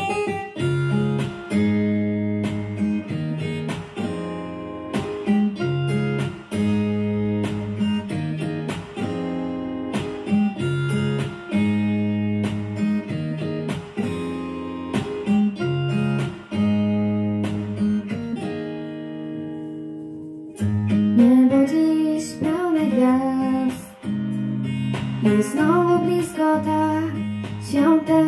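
Instrumental intro of a Christmas pop song: acoustic guitar picking a repeating chord pattern. About 21 seconds in the arrangement fills out and a wavering sung melody line comes in over it.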